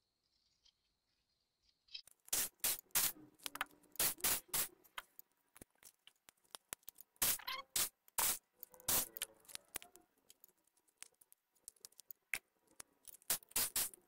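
Irregular clicks, taps and knocks of an opened Asus laptop being dismantled by hand: a screwdriver working the screws and the battery pack being lifted out. They start about two seconds in and come in clusters.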